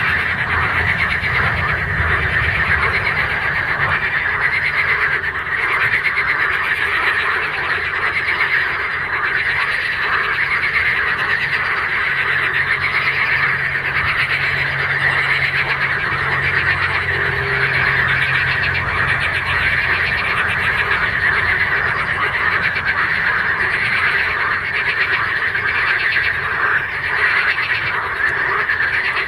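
A dense chorus of frogs calling from a pond: many overlapping fast-pulsed, trilling calls merge into one steady, loud din.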